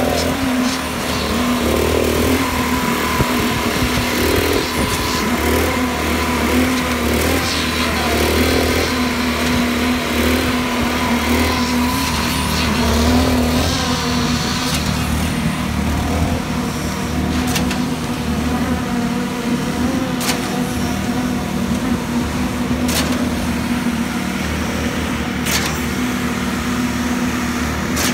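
Concrete-pouring machinery running steadily: an engine-driven poker vibrator and the concrete pump give a constant drone with a steady low hum. A few sharp clicks come in the second half.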